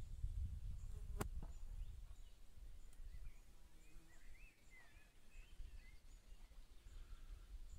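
Quiet outdoor ambience: a low rumble, a single sharp click about a second in, and faint high bird chirps in the middle.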